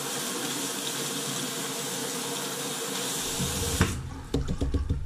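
Bathroom sink faucet running, its stream splashing into the basin over the pop-up drain stopper being rinsed under it. The water cuts off a little under four seconds in, followed by a few sharp clicks and knocks at the drain.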